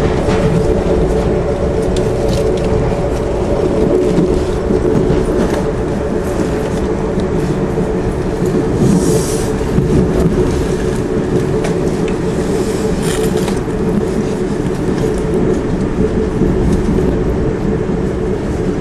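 Amtrak passenger train running at speed, heard from inside the car: a steady rumble with a constant hum, and two brief high hisses about halfway through.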